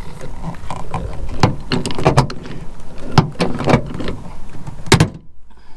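Sharp clicks and clunks, about five in a few seconds, from hands and tools working a power door lock part into place inside a car door.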